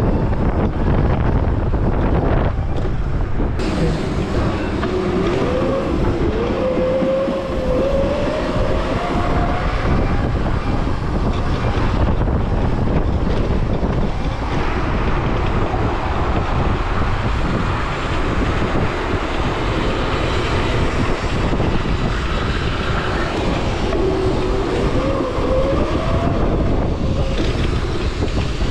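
Riding noise from a Razor RSF electric bike under way: steady wind rushing on the microphone and road rumble, with a thin electric-motor whine that rises in pitch as the bike speeds up, once starting about four seconds in and again near the end.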